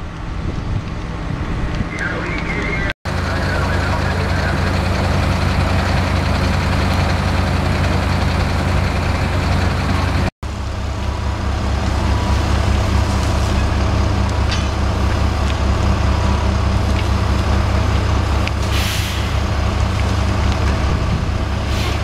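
Fire truck engine running steadily at a constant speed, a deep even drone with a steady hiss above it. The sound cuts out for an instant twice.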